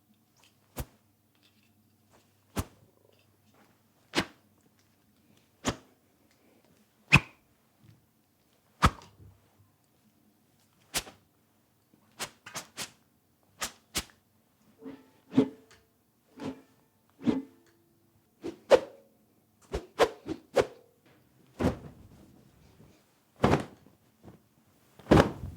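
Paintbrush swished fast through the air close to a microphone: a series of short, sharp whisks, evenly spaced about a second and a half apart at first, then quicker and more irregular.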